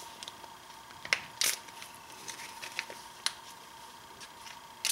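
Plastic bags of rifle cartridges being handled: a few scattered crinkles and sharp clicks.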